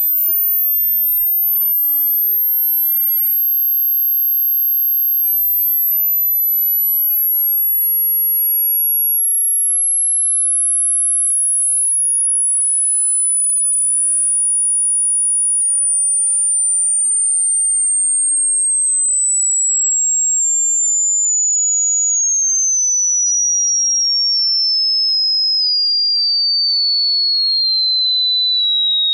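A single pure test tone from a hearing-test app, held steady in loudness and stepping slowly downward in pitch from very high to a lower high whistle.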